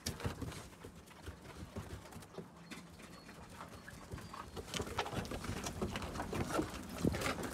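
Puppies' paws and people's footsteps tapping and crunching on an icy wooden deck and crusted snow: an irregular patter of small clicks, busier in the second half.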